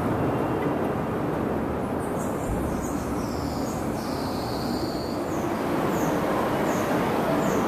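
Steady city traffic rumble, with a bird giving a run of short, falling chirps in the second half.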